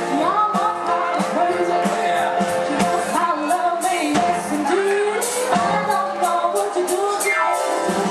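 Live rock and roll band playing, with sung vocals over a steady drum beat and a note sliding down near the end.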